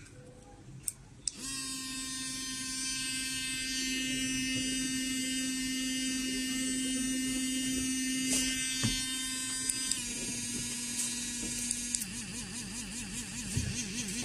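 Electric toothbrush (model ZH412) switched on with a couple of button clicks about a second in, then buzzing steadily at one pitch. Its tone shifts at about ten seconds, and near twelve seconds it turns into a pulsing, warbling buzz as it is switched to another mode.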